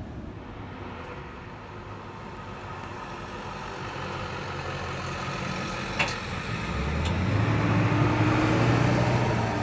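Ambulance driving past close by, its engine hum growing louder as it approaches and loudest as it goes by, with no siren. A single sharp click about six seconds in.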